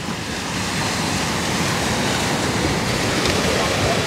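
Sea waves breaking and washing ashore with wind, a steady rushing noise.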